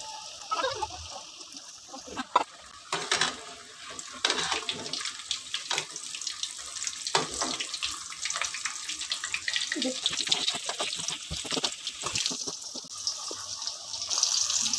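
Elephant foot yam slices deep-frying in hot oil in an aluminium kadai: a steady sizzle with dense crackling, and one sharp click about two seconds in. The sizzle grows louder near the end.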